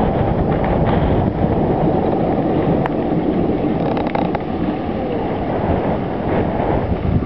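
Wind buffeting the camera microphone: a loud, gusting low rush with no break.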